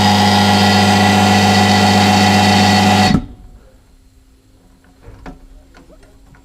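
Small low-output electric air compressor running with a steady, loud hum, then cutting off abruptly about three seconds in, leaving a few faint clicks. The owner says it doesn't sound too healthy after it had packed up.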